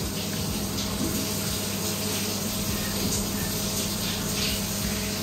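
Water running steadily into a whirlpool bathtub as it fills, with a steady low hum underneath.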